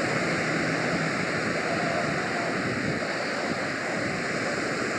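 Steady wash of sea surf breaking and running over a sandy beach.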